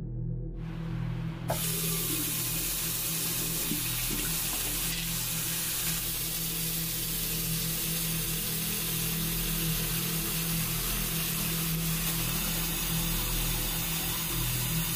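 Bathroom tap running steadily into a sink, coming in about a second and a half in, with a low steady hum underneath.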